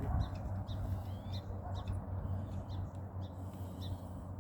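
A bird calling with a string of short, high chirps every half second or so, over a low steady rumble.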